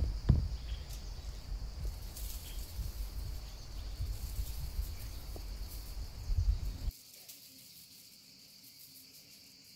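Hand pepper mill grinding pepper, light crackles, over a steady high-pitched whine and a low rumble that cuts out about seven seconds in.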